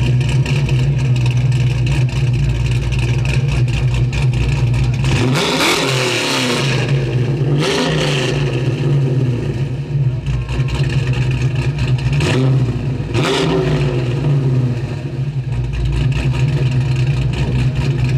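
Car engine idling with a steady low rumble, revved up and back down in quick blips: twice around six to eight seconds in and twice around twelve to fourteen seconds.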